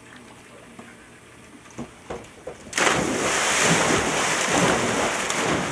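Swimming-pool water splashing as people jump in one after another from a diving board: quiet at first with a couple of small knocks, then a sudden loud splash about three seconds in, followed by continuous splashing and churning water.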